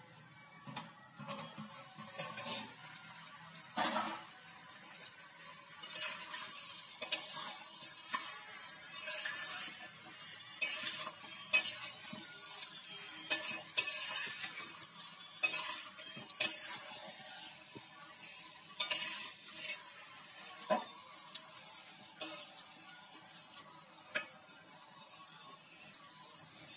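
Spatula stirring and scraping chicken, potatoes and brinjal frying in a thick spice masala in a kadai, with a steady sizzle under irregular scrapes against the pan: the kosha stage of slow-frying the chicken in its masala.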